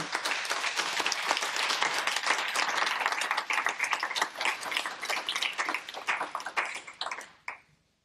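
A small audience applauding, a dense patter of many hands clapping that thins out and dies away near the end.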